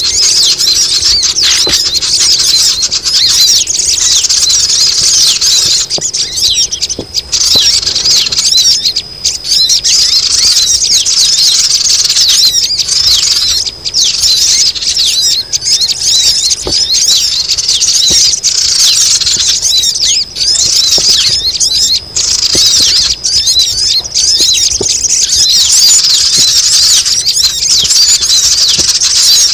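A dense, loud chorus of sogon birds, many high, thin, squeaky calls overlapping without pause. It is a bird-lure (pikat) recording of noisy sogon, played to draw wild birds down.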